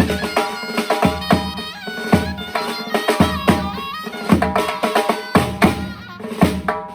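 Uzbek folk music: a surnay, a reedy double-reed shawm, plays a bright ornamented melody over a steady drum rhythm with sharp strikes.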